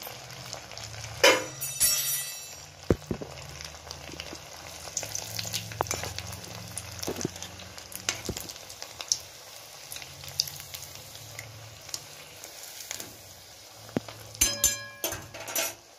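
Potato rings deep-frying in hot oil in a kadai on a low gas flame, sizzling steadily. A few sharp metal clinks come near the start and again near the end.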